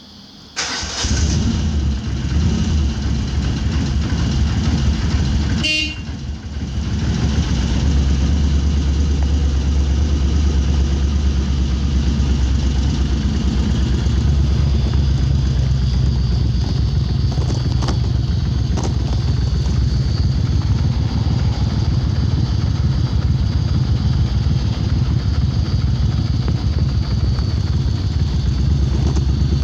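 Moto Guzzi air-cooled transverse V-twin with Lafranconi exhaust silencers running, coming in loud about half a second in. Its note dips briefly about six seconds in, with a short high-pitched sound, and it runs steadily from about eight seconds on.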